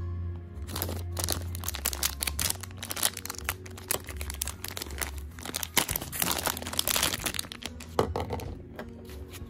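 Clear plastic packaging bag crinkling and rustling as hands handle and open it, a dense irregular crackle starting about a second in.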